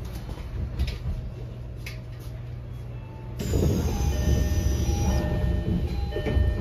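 Inside a stopped Tokyo Metro 10000 series subway car: a steady low hum with a few faint clicks, then about three and a half seconds in the passenger doors slide open with a sudden rush of louder noise and a high whine that falls slightly in pitch and stops about two seconds later.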